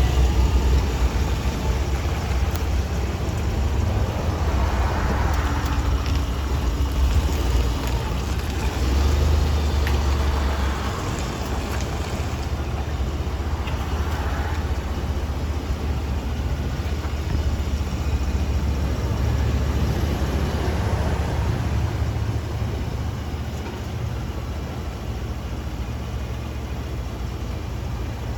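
Ford F-150 3.5L EcoBoost pickup driving: a steady low rumble of engine and road noise.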